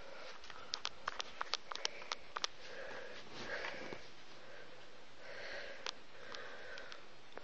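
A quick run of about a dozen small sharp clicks a second or so in, and a few more near the end, over faint room noise.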